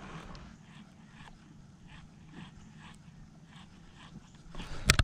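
A jerkbait being twitched and retrieved on a fishing rod and reel, with a faint tick about every half second over a low steady hum. Near the end there is one sharp, loud knock.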